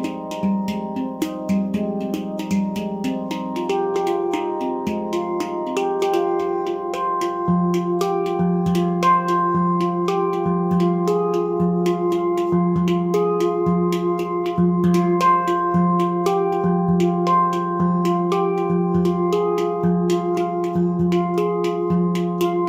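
Nimo Sounds handpan tuned to F low pygmy, played with bare hands: quick strikes on its tone fields ring into each other. From about a third of the way in, a low note repeats roughly once a second as a steady pulse under the higher notes.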